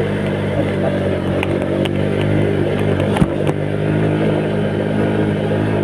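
Small motorcycle engine running at a steady speed while riding, with one brief knock about three seconds in.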